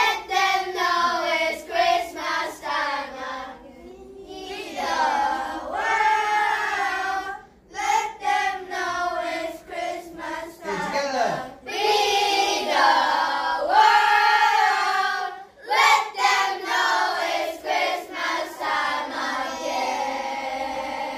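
A group of children singing together in a volume-control exercise, their voices swelling louder and dropping softer. Runs of short separate notes alternate with longer held phrases.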